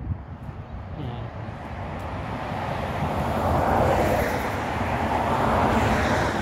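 A vehicle passing on the road: its noise swells gradually over about four seconds and stays loud near the end.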